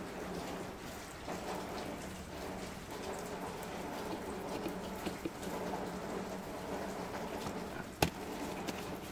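Steady rain-like hiss with faint ticks as a screwdriver turns a screw into the plastic underseat storage compartment of a scooter, then one sharp click about eight seconds in as the screwdriver comes off the screw.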